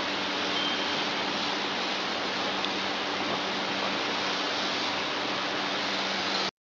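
Steady rushing hiss with a faint low hum from a running CNC glass-cutting machine, cutting off abruptly near the end.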